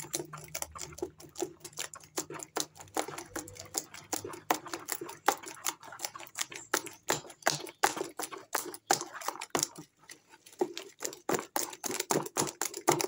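A utensil stirring a thick lye-and-oil detergent mixture in a container as it saponifies, making rapid, irregular clicks and taps against the sides, several a second.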